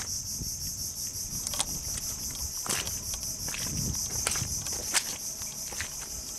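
Steady high-pitched insect chorus from the mangroves, pulsing rapidly, with scattered sharp clicks.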